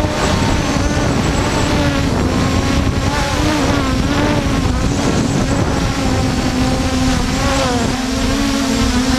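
Force1 F100 quadcopter's motors and propellers whining steadily. The pitch wavers up and down as the throttle is worked to hold the drone against the wind, with wind buffeting the microphone.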